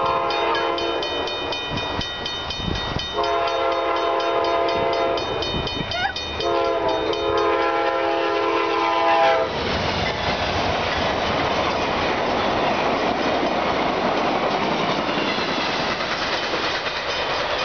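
Amtrak passenger train sounding its horn in three long blasts for the grade crossing, over the steady ringing of the crossing-signal bells. About nine and a half seconds in the horn stops and the train passes at speed, a loud steady rush of wheels on rail that drowns out the bells.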